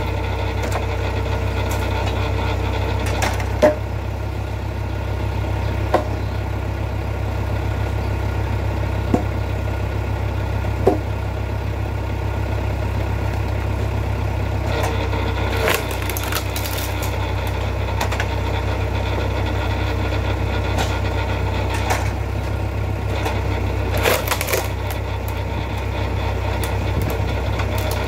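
Vertical hydraulic log splitter working through a log, its drive engine running steadily underneath. Sharp cracks come every few seconds as the wedge forces the wood apart, with a longer splintering tear about halfway through and another near the end.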